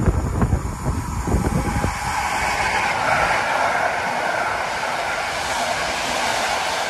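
A passing train: a steady rushing hiss of wheels rolling on rails, with wind buffeting the microphone during the first two seconds.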